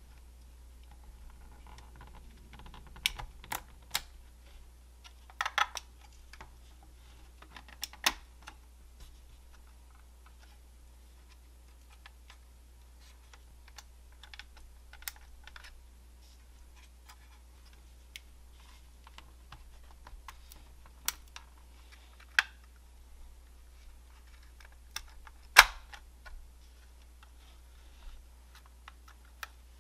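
Scattered small plastic clicks and taps as the body and chassis of a 1/25 scale plastic model car kit are handled and pressed together. One sharper click comes near the end, over a faint steady low hum.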